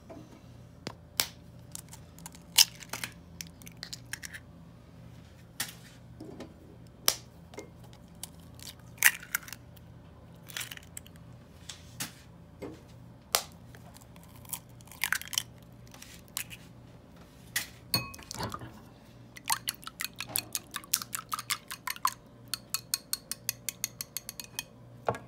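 Eggs being cracked into a glass bowl, heard as scattered sharp clicks and taps of shell and glass. About twenty seconds in, a whisk starts beating the eggs against the glass in a fast, even run of clicks, about five a second.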